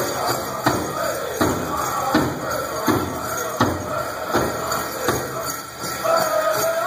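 Powwow drum struck in a steady beat, about one stroke every three-quarters of a second, with the singers silent; the singing comes back in near the end.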